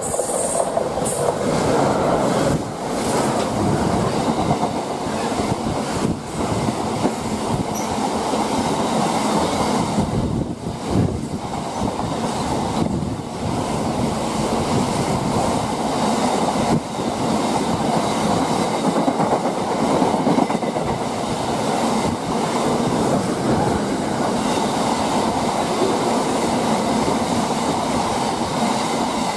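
Freightliner Class 66 diesel locomotive with a two-stroke V12 engine running past close by at the start. It is followed by a long train of loaded container wagons rolling through, a steady noise of wheels on rail with occasional knocks.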